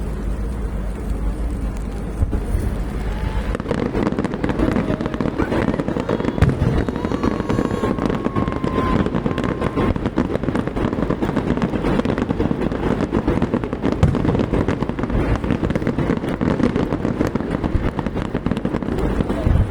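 Fireworks going off in a dense, rapid barrage of bangs and crackles, thickening about three or four seconds in and then keeping up without a break.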